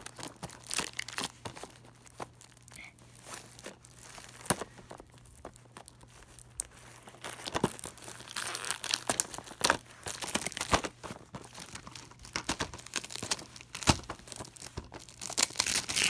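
Plastic shrink wrap being crinkled and torn off a Blu-ray case: irregular crackling and rustling with sharp snaps, loudest about halfway through and again near the end.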